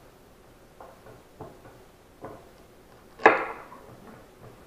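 Kitchen knife cutting through celery stalks onto a wooden cutting board as the ends are trimmed off: a few light taps, then one sharp, louder chop about three seconds in.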